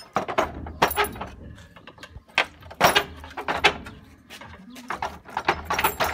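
Irregular metallic scrapes and clinks as a thin steel strip is worked against a disc mower's rusty cutter bar, with a run of quick strokes near the end.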